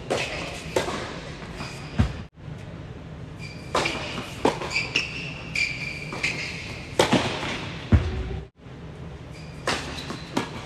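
Doubles tennis rally on an indoor hard court: a string of sharp, echoing pops of racquets striking the ball and the ball bouncing, with brief squeaks of sneakers on the court surface.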